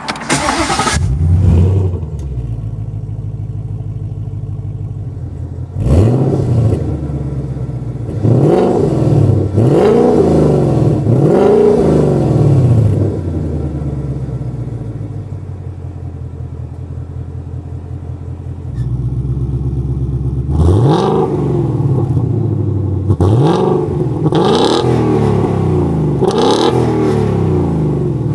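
2018 Ford Mustang GT's 5.0 V8 with a NAP valved stainless sport exhaust, push-button started: it catches with a flare and settles to idle, then is blipped several times with the exhaust valves closed. Later, with the valves open, it idles louder and is blipped several times again.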